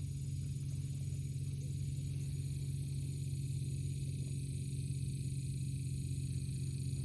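Steady low hum with a faint high hiss above it, unchanging throughout.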